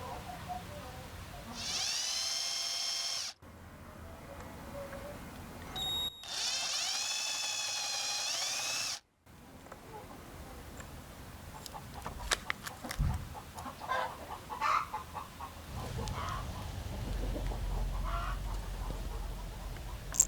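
A small power tool running in two bursts, the first short and the second about three seconds long, its high whine dipping in pitch and then holding before cutting off abruptly. Scattered light clicks and taps follow in the second half.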